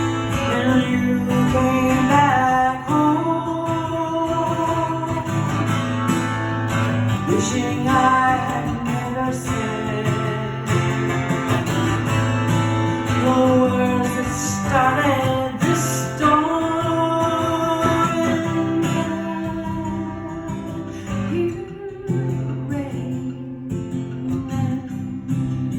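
Acoustic guitar playing with a voice singing a melody over it; the sung lines are not caught as words.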